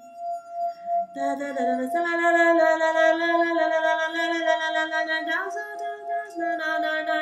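A wine glass rim ringing one steady tone, joined about a second in by a woman's wordless sung tones held long over it. Her voice slides up once and breaks off briefly before going on.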